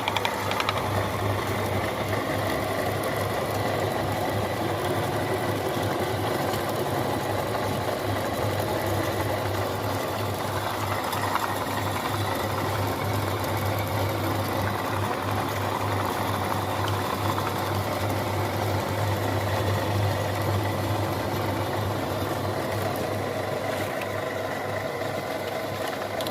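Electric meat grinder running steadily as it grinds ice cream, its motor giving a constant hum.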